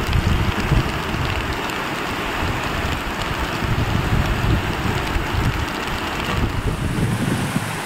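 Steady rushing of a muddy flash-flood torrent, a loud even noise without distinct events; its tone shifts slightly about six and a half seconds in.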